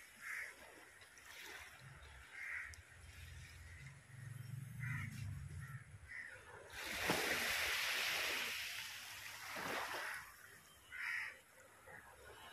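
Crows cawing now and then in short single calls. About halfway through, a loud rushing swell lasts about three seconds.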